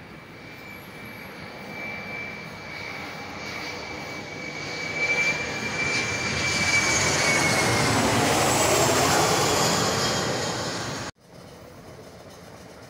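Twin-engine jet airliner flying low overhead: a high engine whine that drops slightly in pitch as it passes, over a rumble of jet noise that swells to its loudest in the second half, then cuts off suddenly.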